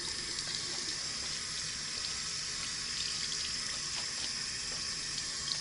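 Water running steadily from a tap into a sink, with a few faint small splashes.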